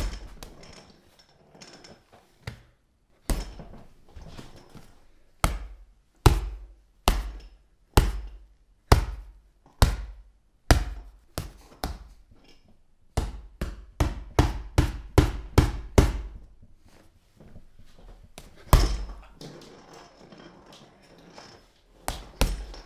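Punch sound effects: a long series of sharp hits, each with a deep thud. They come about one a second, quicken into a rapid flurry in the middle, and are followed by one loud single hit and a few more near the end.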